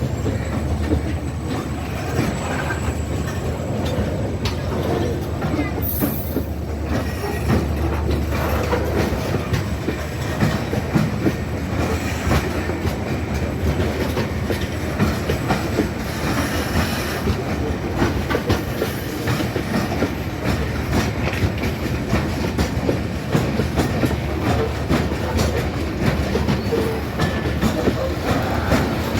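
A goods train rolling past, its wagons running with a steady clickety-clack of wheels over the rail joints and a low rumble.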